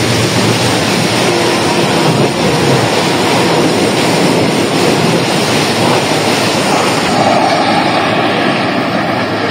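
Passenger coaches of the Tezgam Express passing at speed just below: a loud, steady rushing rumble of wheels on rail.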